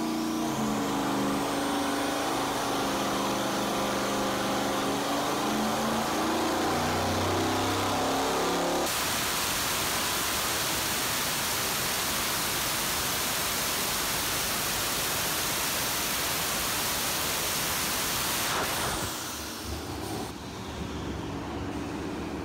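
Twin-turbo 4.8-litre LS V8 with a pair of GT3582 turbochargers running on an engine dyno, with a rising turbo whine at first. About nine seconds in it breaks into a steady loud rush for about ten seconds, consistent with a pull under load, then drops back to a quieter, uneven running sound as the turbo whine winds down.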